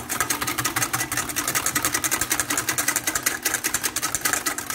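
A whisk beating yogurt in a bowl: fast, even clicking of the whisk against the bowl, over a steady low hum.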